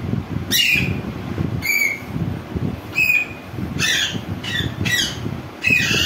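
Caged green parakeet giving a series of about seven short, harsh squawks a second or so apart, over a low background rumble.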